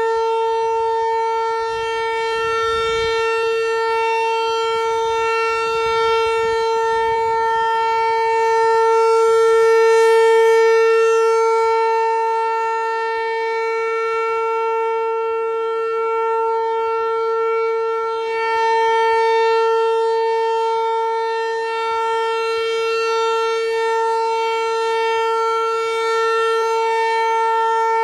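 Outdoor tornado siren sounding its steady alert signal: one unchanging tone, with no rise and fall in pitch, its loudness swelling and fading slowly about every nine seconds.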